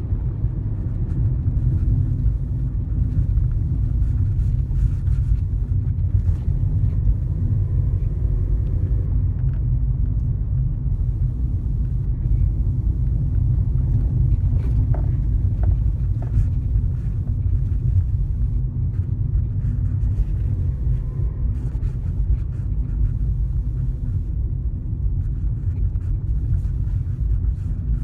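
Car driving at about 60 km/h, heard from inside the cabin: a steady low rumble of road and engine noise, with a few light clicks and rattles.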